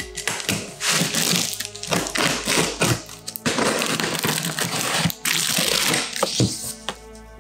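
Large cardboard shipping box being opened by hand: cardboard flaps scraping, rustling and crinkling, with sharp clicks and knocks, over steady background music.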